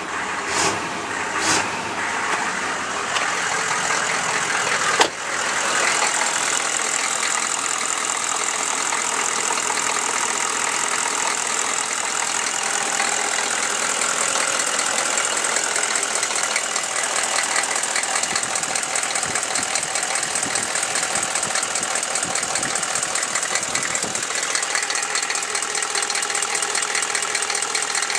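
Chevrolet 6.5L V8 diesel engine idling with a fast, light knocking, which the owner takes for a valve or rocker arm needing adjustment. A sharp thump comes about five seconds in.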